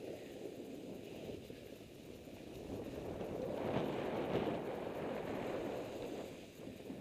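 Skis hissing and scraping through soft, chopped-up snow during turns, with wind rushing over the microphone; the snow noise swells loudest around the middle.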